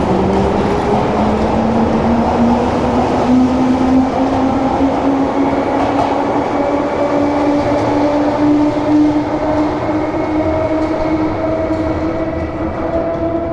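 Electric train pulling away: a rising motor whine climbs steadily over a heavy rolling rumble, then levels off.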